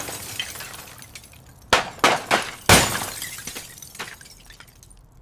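Glass shattering and breaking. A crash tails off, then four sharp smashes come in quick succession about two seconds in, followed by fragments tinkling down.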